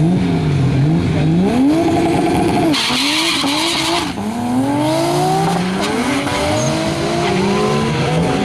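Toyota Supra drag car accelerating hard through the gears on a quarter-mile pass, its engine pitch climbing and then dropping at each upshift. A hissing burst comes about three seconds in.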